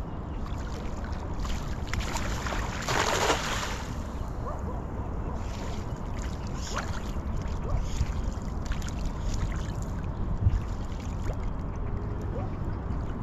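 A hand-thrown cast net slaps onto the river surface with a short, loud splash about three seconds in. Small watery splashes follow as the net sinks and its hand line is drawn in, over a steady low rumble.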